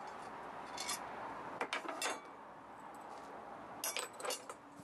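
Chrome metal drum hoop being lifted off a small acoustic drum and laid on a wooden bench, with loose tension rods handled beside it: metal clinking and rattling in a few short clusters, about a second in, around two seconds in, and near the end.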